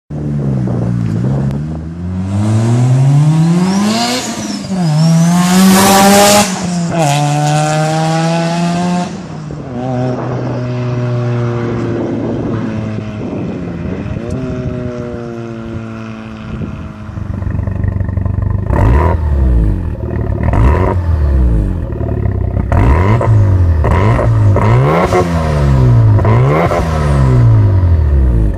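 Mazda RX-7 FD3S twin-rotor rotary engine with an HKS T51R single-turbo conversion and open screamer pipe, accelerating hard with its pitch climbing and dropping at the gear changes amid strong turbo hiss, then passing and trailing off. After that a second FD3S with a large single exhaust tip is revved repeatedly while parked, each rev rising and falling, with sharp cracks on several of them.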